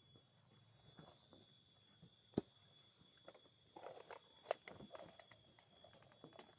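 Faint scattered taps and knocks with two sharp clicks, about two and a half and four and a half seconds in, over a faint steady high tone.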